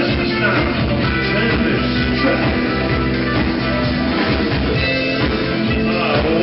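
Rock band playing live, with electric guitars and a vocal over them, heard from within the audience.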